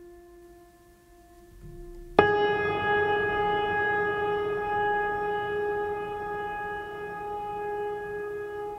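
A faint steady tone with overtones. About two seconds in comes a sharp knock, and a much louder sustained tone with overtones starts at once; it holds its pitch and slowly fades.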